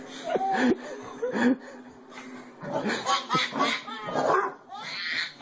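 A large dog barking in short, sharp barks, several in the first second and a half and a quicker run near the end, mixed with a baby laughing.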